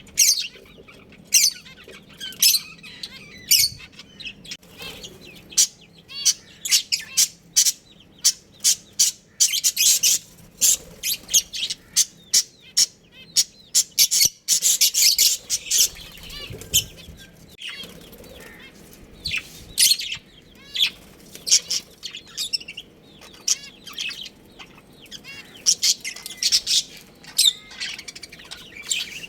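Budgerigars chirping: many short, high-pitched chirps in quick succession, busiest about ten and fifteen seconds in.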